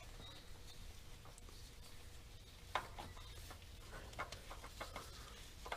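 Faint, irregular clicks and taps as a loosened oil filter is worked off and drains, the sharpest about three seconds in and a few more near the end, over a low steady hum.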